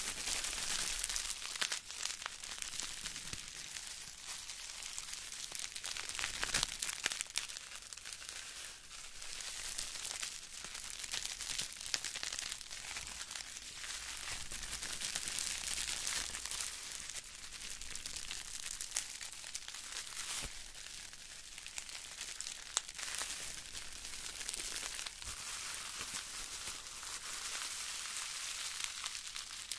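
Crumpled ball of plastic bubble wrap squeezed and rubbed in the hands close to the microphones: a dense, continuous crinkling crackle, mostly high-pitched, with scattered sharper clicks.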